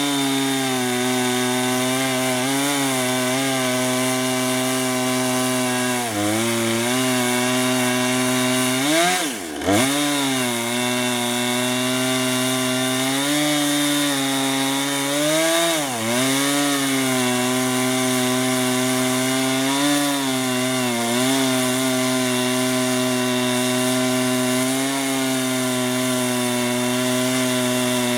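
Husqvarna Rancher 455 two-stroke chainsaw with a 24-inch bar and ripping chain, running at full throttle in a chainsaw mill as it rips a log lengthwise. The engine note sags under load a few times and recovers, most deeply about nine seconds in.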